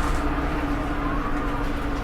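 Volvo B7RLE bus's six-cylinder diesel engine running steadily, with a faint turbo whistle rising about a second in.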